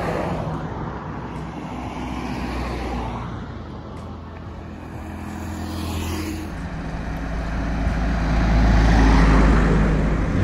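Road traffic: vehicles pass on a mountain road, the noise swelling and fading. A vehicle engine is loudest near the end.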